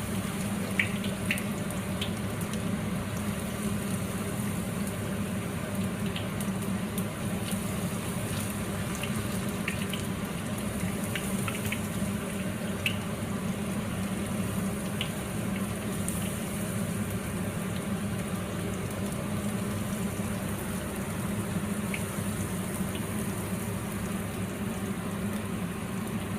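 Battered chicken pieces frying in oil in a wok: a steady sizzle with scattered small crackles and pops.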